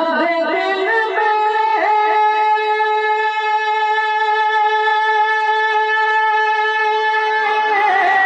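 A man singing a naat through a microphone, drawing out one long held note after a couple of seconds of wavering ornaments. The note stays steady until near the end, when his pitch bends into the next phrase.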